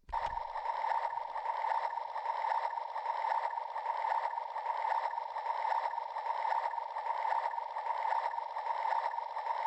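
Toy mixer's small electric motor running steadily, switching on at the start and cutting off abruptly near the end.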